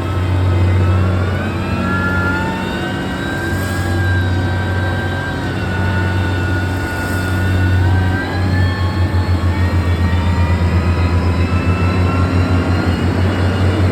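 Heavy construction machine's diesel engine running: a steady low drone with a whine that rises and falls in pitch, and from about eight seconds in the drone pulses quickly, several beats a second.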